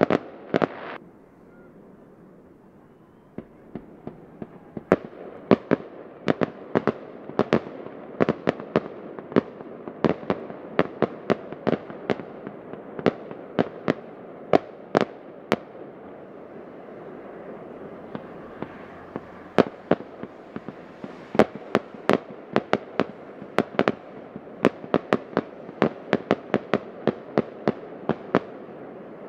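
Fireworks display: aerial shells bursting in sharp bangs. A few loud bangs open it, a lull of about two seconds follows, then a rapid barrage of bangs, often several a second, over a steady rumble.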